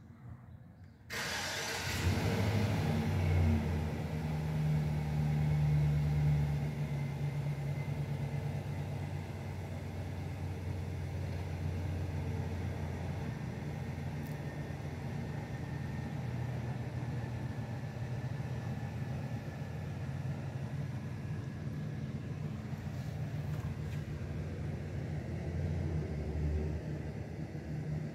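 A machine starts up suddenly about a second in, with a burst of noise, then runs steadily with a low hum.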